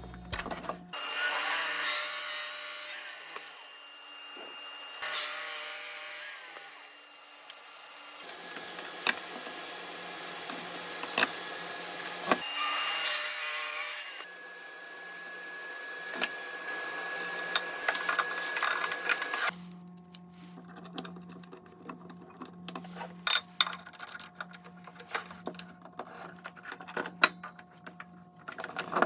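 Power tools working wood in several loud bursts, with a steady motor hum between them. Near the end the sound turns quieter, with many small clicks and taps over the hum.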